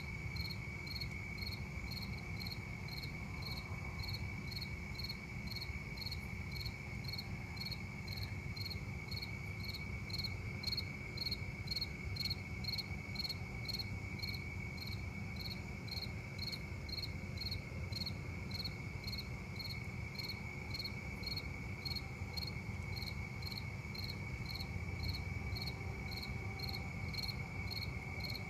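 Night insects, crickets: one steady, unbroken high trill with evenly repeated chirps about twice a second over it, and a low steady rumble underneath.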